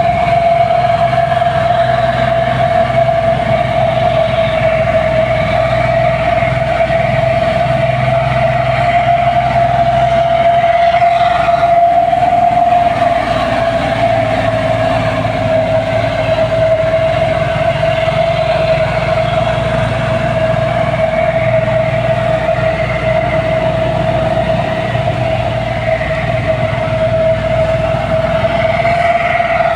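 Heavy diesel machinery running steadily, a loud constant whine held over the low rumble of the engine.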